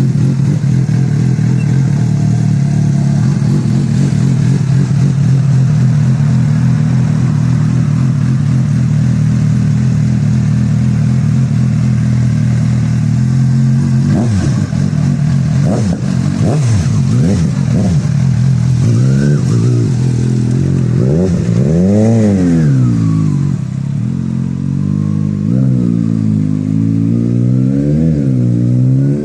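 Motorcycle engine idling steadily, then revved repeatedly from about halfway on, the pitch rising and falling with each blip of the throttle.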